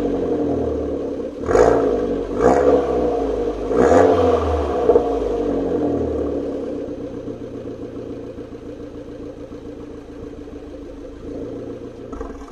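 Abarth 500's 1.4 turbo four-cylinder engine (IHI turbo, 140 hp) heard through a Niba Racing 200-cell sports catalyst and Inoxcar exhaust, with a deep tone. It takes three quick throttle blips about 1.5, 2.5 and 4 seconds in, then the revs sink back to a steady idle.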